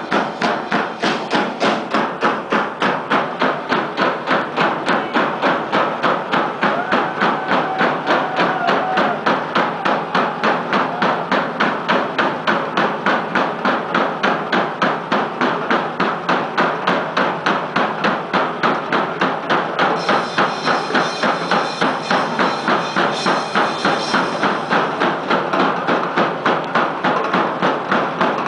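Live drum kits played together, beating a fast, steady pulse of about three hits a second.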